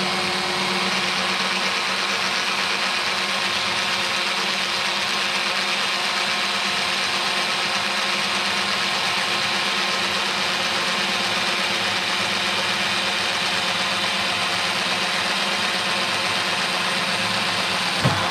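Parkside cordless angle drill running under load at a steady speed as it bores at an angle through wood. It holds one steady pitch the whole time and gets through with no problems.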